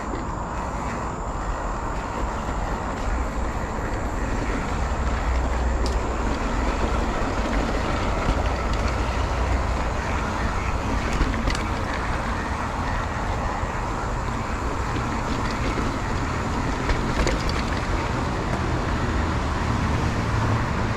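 Motorcycle riding along a road: steady engine rumble mixed with wind and road noise, with a few faint clicks.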